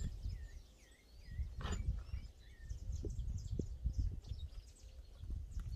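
Birds chirping in short, repeated curved calls over a steady low rumble, with a few sharp knocks as a car wheel is worked off its hub.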